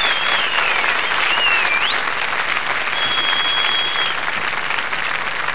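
Large concert audience applauding in dense, steady clapping, with a few high whistles sliding up and down over it and one held whistle about three seconds in.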